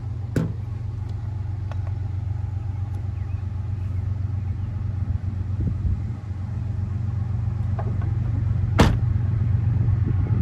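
Diesel locomotives of an approaching freight train, GE ES44AHs, rumbling low and steady and growing slightly louder. Two sharp clicks, a faint one about half a second in and a louder one near the end.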